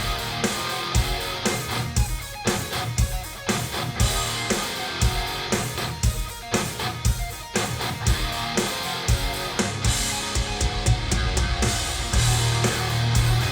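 Rock music with guitar and drum kit and a steady beat, played back over Elfton Elevator floor-standing loudspeakers and picked up by microphones in the listening room.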